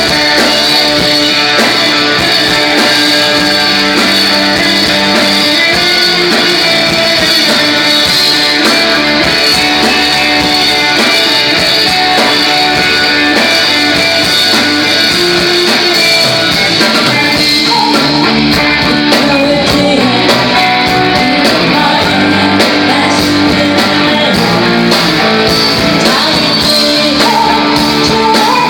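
A rock band playing live: guitar-led rock music, steady and loud, with a voice singing.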